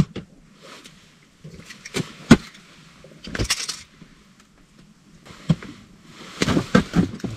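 Handling noises: scattered knocks and clicks, the loudest about two seconds in, with two short bursts of rustling around three and a half and six and a half seconds in.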